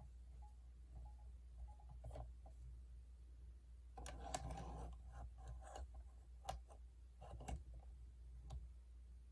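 Faint clicks and handling noise. A short patch of rustling and clicking comes about four seconds in, then a few single sharp clicks near the end.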